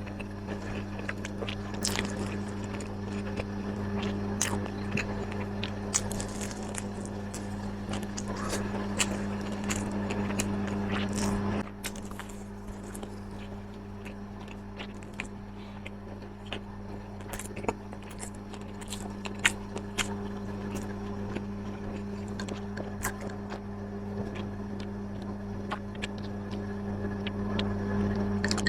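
A person biting and chewing crunchy food close to the microphone: irregular crisp crunches and mouth clicks over a steady low hum.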